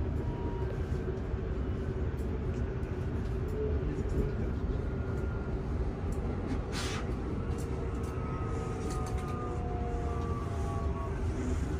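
Transilien Line L electric commuter train running, heard from inside the passenger car: a steady low rumble with a constant hum. About seven seconds in comes a short hiss, and near the end a faint motor whine climbs slowly in pitch as the train gathers speed.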